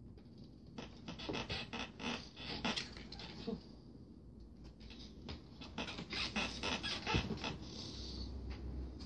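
Two kittens play-wrestling on a carpeted cat tree: quick flurries of scratching and pattering as claws scrabble on the carpet and paws scuffle, in two bursts, about a second in and again about halfway through.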